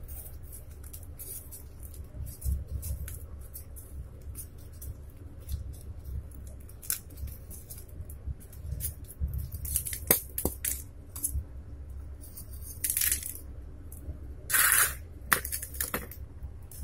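Scattered small metal clicks and clinks as the soldered sheet-metal parts of a cotton candy machine's heating head are pried apart by hand, with bits of metal dropping onto cardboard. There are a couple of short scraping rasps in the second half, over a low steady rumble.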